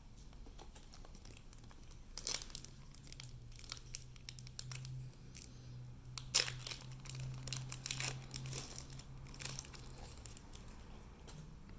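Foil booster pack wrapper crinkling and tearing as a Pokémon card pack is opened, with the cards rustling as they are handled. The sound comes in scattered short crackles, the sharpest about six seconds in.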